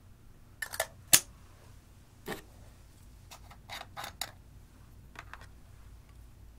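Sharp clicks and taps of plastic makeup cases being handled and opened, including a lip balm case having its cap taken off. The loudest click comes about a second in, followed by a scatter of lighter clicks.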